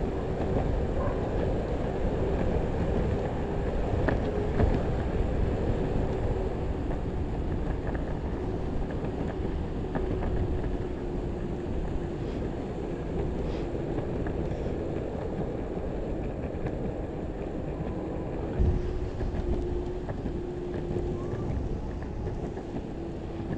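Possway T3 electric skateboard rolling on pavement: a steady rush of wheel and road noise with a steady hum from the drive, and wind on the microphone.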